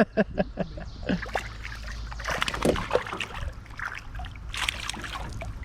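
Water sloshing and splashing against a small fishing boat, with a few louder splashes and light knocks over a steady low hum.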